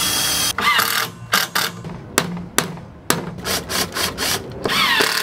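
Cordless drill driving screws through metal bracing strap into a wooden frame: the motor whirs up in short runs that rise in pitch, with sharp clicks in between and another run near the end.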